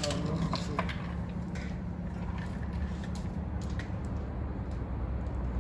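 Car engine idling with a steady low rumble, with a few light metallic clicks and taps over it.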